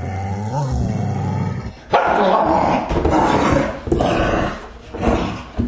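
Dogs growling and snarling: a low, drawn-out growl, then from about two seconds in, loud rough bouts of snarling with barks, breaking off briefly twice before flaring up again near the end.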